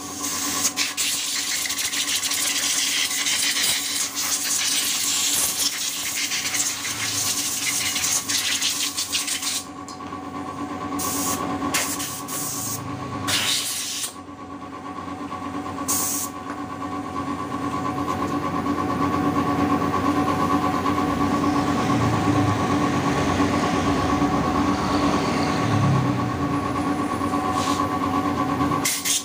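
Steady hiss over a constant machine hum. About ten seconds in the hiss cuts off and comes back as a few short blasts, then a lower, rougher noise takes over under the same hum.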